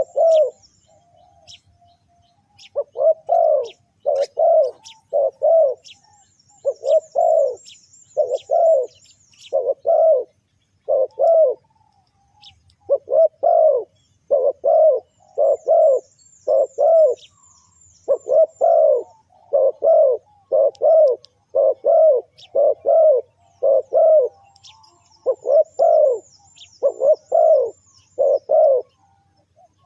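Spotted dove cooing over and over, in short phrases of two or three low notes with brief gaps between. Faint high twittering from small birds comes and goes behind it.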